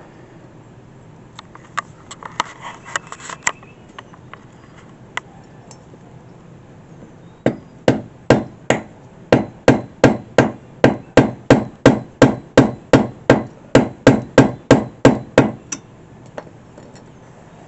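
A hammer striking repeatedly and evenly, about three blows a second for some eight seconds, after a few lighter tool clicks and taps.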